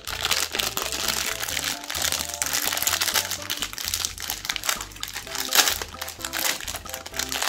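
Foil-lined plastic wrapper of a Magnum ice cream bar crinkling and crackling as it is torn open and peeled back by hand, with one louder crackle about five and a half seconds in. Background music with a stepping bassline plays underneath.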